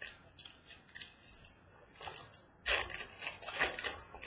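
A Donruss baseball card box being handled and opened by hand: dry rustling and crinkling of cardboard and wrapper, light and scattered at first and denser from about two and a half seconds in.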